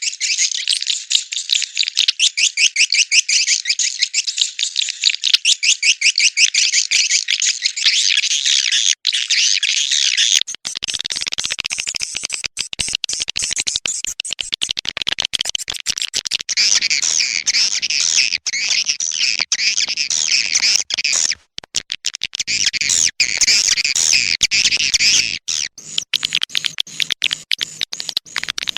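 Swiftlets twittering: a dense, continuous run of rapid high chirps, the call recording played to lure wild swiftlets into a swiftlet house to nest. A faint low hum runs underneath through the middle stretch.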